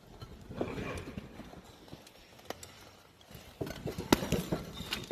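Footsteps over loose slate underfoot: irregular hard knocks and clatters, clustered about half a second to a second and a half in and again in the last second and a half.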